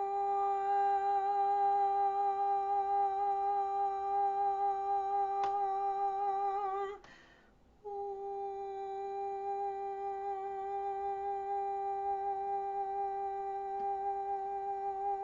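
A woman humming one long steady note as vocal toning. She breaks off about seven seconds in for a breath, then holds the same note again, and the pitch wavers slightly as each note ends.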